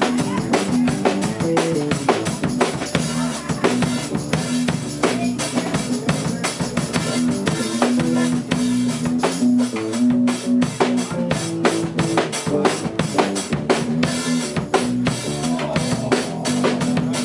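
Live band playing an instrumental passage: a drum kit keeps a busy, steady beat with kick and snare under a played electric bass line.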